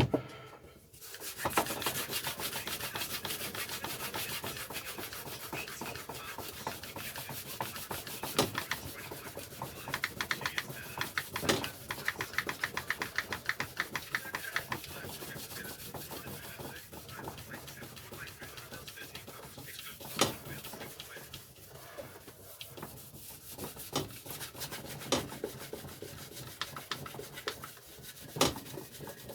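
Rapid back-and-forth scrubbing strokes on a lawn mower deck, working at baked-on deposits to get them off, with a few sharp knocks along the way.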